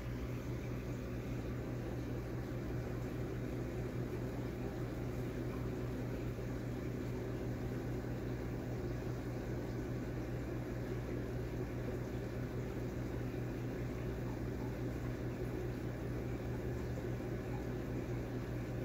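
Aquarium pump running with a steady low hum and a faint rushing hiss.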